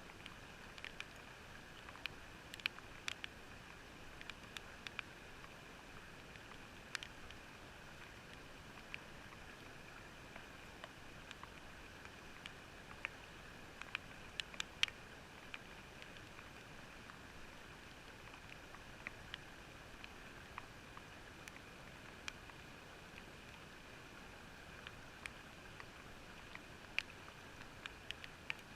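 Faint steady rushing hiss, muffled and coloured by a watertight GoPro housing, with scattered small sharp clicks and taps.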